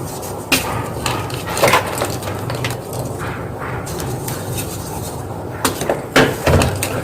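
Gym chalk crunching as it is crushed: a few sharp crunches about half a second in and near two seconds, then a cluster of louder crunches near the end, over a steady low background noise.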